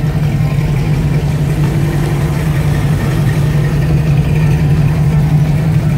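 Second-generation Chevrolet Camaro's engine idling steadily, a strong, even low exhaust note.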